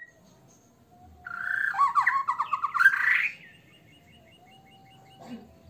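White-rumped shama singing: a loud, varied phrase of whistles and fast trills starting about a second in, then a faint quick run of short high notes.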